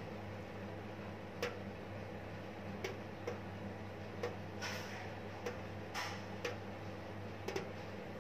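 Water drops falling from a wet face into a stainless steel sink, making faint, irregular sharp ticks, about ten of them, over a steady low hum.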